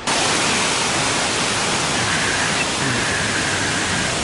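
Waterfall running: a loud, steady rush of falling water that fills the whole sound.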